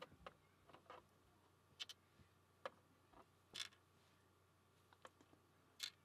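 Faint, irregular small metal clicks and taps, about eight of them: lock pins being worked out of the lock plug with a pick and set down in a metal pin tray.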